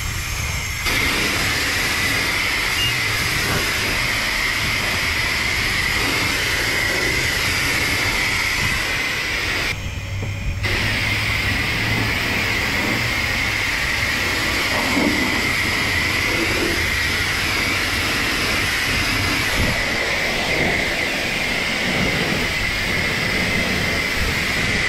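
High-pressure wand at a self-serve car wash spraying water onto a car's body, rinsing off soap: a steady, loud hiss, cut off for about a second about ten seconds in.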